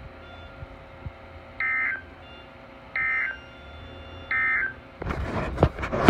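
A Midland NOAA weather radio's speaker sends three short, identical bursts of buzzy digital data tones about a second and a half apart: the SAME end-of-message code that closes the weekly test broadcast. Near the end, loud handling rustles and knocks as the radio or camera is moved.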